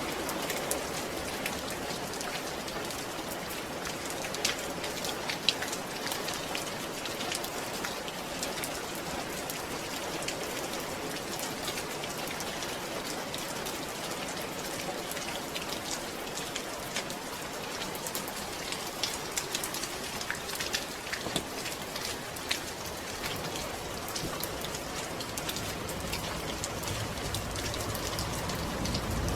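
Steady rain falling, a constant hiss dotted with many individual drop ticks. A low rumble swells near the end.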